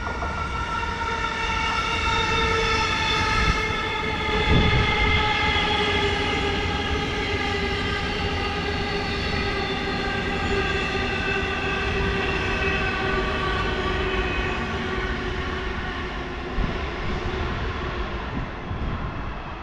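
Train in the station, a steady whine with several overtones slowly falling in pitch and fading near the end, over a low rumble, with a knock about four seconds in.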